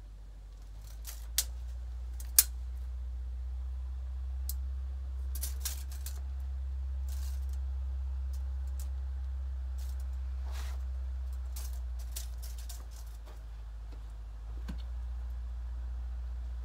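Sharp clicks and light rattles of a steel tape measure being handled against a log on the sawmill bed, with two loud clicks a second apart near the start and scattered smaller ones after, over a steady low hum.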